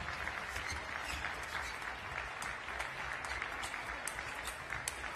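Applause in a large hall: a steady wash of clapping, with many sharper individual claps standing out.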